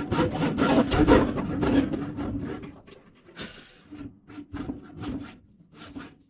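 A hand ratchet clicking in quick, rasping strokes. The strokes are loudest for the first two seconds or so, then fainter and more spaced out.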